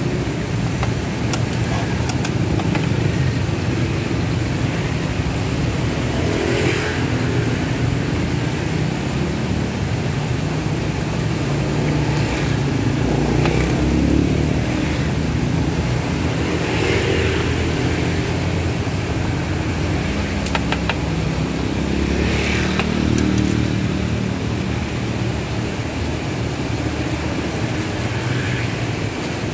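Steady road traffic, motorcycles and cars running past, as a continuous rumble, with a few short, sharper sounds on top every few seconds.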